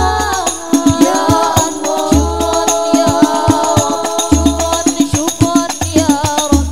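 Al-Banjari ensemble playing a sholawat: singers carry an ornamented, sliding melody over a dense, quick rhythm of hand-struck frame drums (terbang). A deep bass drum stroke sounds about every two seconds.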